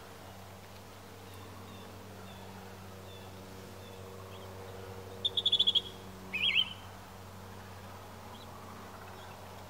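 A small finch calling: a quick run of about seven sharp, high notes, then a short wavering note, with a few faint high chips before them.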